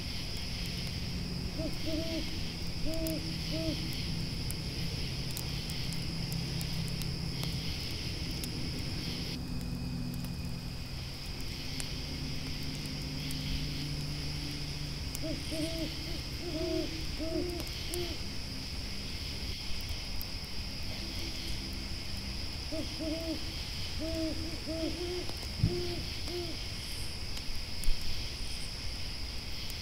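An owl hooting in three bursts of short, arched hoots, over a steady high chirring of grasshoppers or crickets, with faint scattered crackling ticks.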